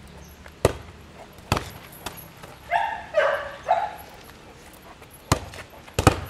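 A dog gives three short, high-pitched barks in quick succession about three seconds in, with a few sharp knocks scattered before and after.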